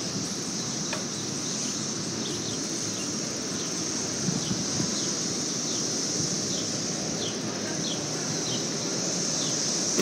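Insects droning steadily in a high-pitched band, with short falling chirps about once a second, over a low rumble of street and wind noise.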